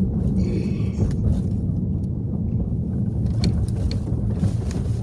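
Car driving: steady low engine and road rumble heard from inside the cabin.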